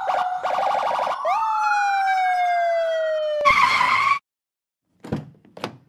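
Police car siren sweeping up and down, with a rapid warble near the start and then a long falling tone, ending in a short harsh horn blast about three and a half seconds in that cuts off suddenly. Two short thuds follow near the end.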